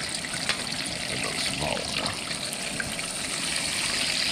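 Fish frying in a pan of hot oil on a propane camp stove: a steady sizzling hiss that grows a little louder near the end. A few light clicks of metal tongs against the pot.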